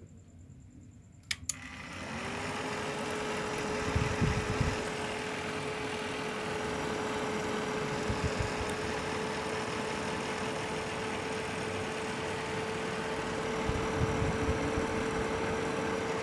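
Two clicks of a power switch, then the cooling fan of a Lakoni 120A inverter welding machine spins up and runs with a steady whir and hum, a sign that the machine is powering on again after being dead.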